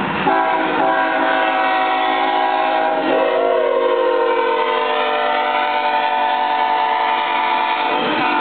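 Diesel locomotive's air horn sounding one long continuous blast of several tones at once, cutting off near the end. A short rising-and-falling wail joins it about three seconds in.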